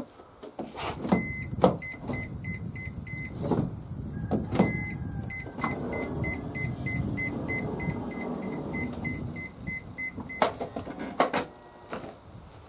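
Toyota Alphard power sliding door: handle clicks, then the door's warning buzzer beeping about four times a second while the door motor runs and the door slides shut, ending in the clunks of the latch about ten seconds in. The power operation only starts after the handle is held pulled for a while, a fault put down to a failing door lock release motor.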